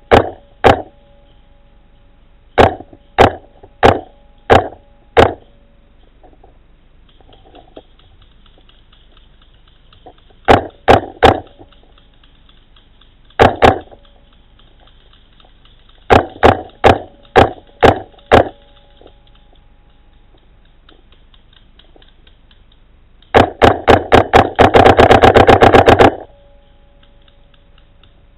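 Paintball marker firing: sharp pops in short strings of single shots, then near the end a very rapid burst of many shots in under three seconds.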